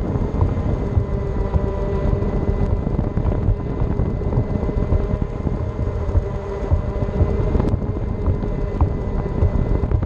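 Small electric vehicle riding along a concrete path, filmed at ground level: steady rumble of wheels on the concrete with a constant faint whine, and wind buffeting the microphone.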